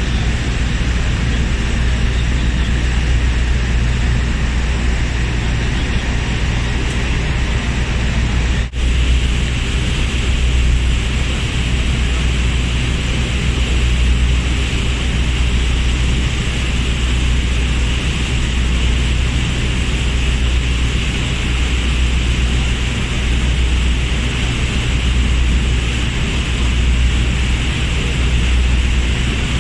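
Steady drone of a boat's engine under the rush of its churned-up wake, with a brief dropout about nine seconds in.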